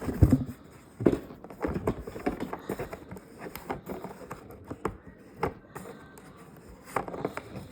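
Irregular knocks, taps and clatter of objects being handled and set down, about a dozen at uneven spacing, the loudest just after the start and about a second in.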